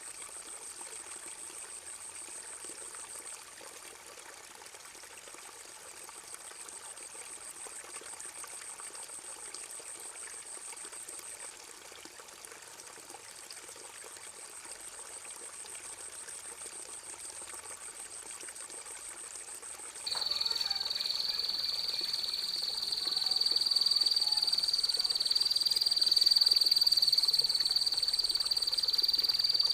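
Trickling water with a faint steady high tone for about twenty seconds. Then a loud, long, even high-pitched trill starts and holds without a break to the end.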